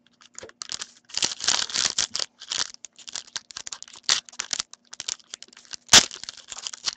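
A trading card pack's foil wrapper being torn open and crinkled by hand: irregular crackling rustles, with one sharp snap about six seconds in.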